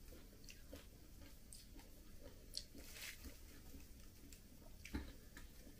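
Faint close-up chewing and mouth sounds, a few soft smacks and clicks, the clearest about two and a half seconds in and again near five seconds.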